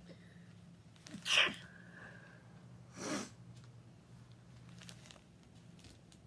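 A person sneezing into a plastic sandwich bag lined with paper towels held over the nose and mouth, about a second in, followed about two seconds later by a second, quieter burst of breath noise.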